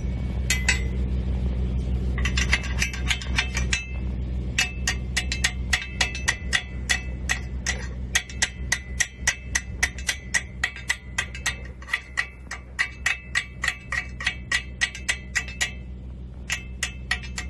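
A hammer striking steel over and over, about three blows a second, each with a short metallic ring. It pauses briefly about 4 s in and again near the end. A steady low hum runs underneath.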